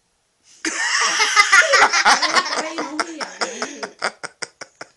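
Loud, hearty human laughter breaking out about half a second in, then trailing off into a string of short, breathy laughs near the end.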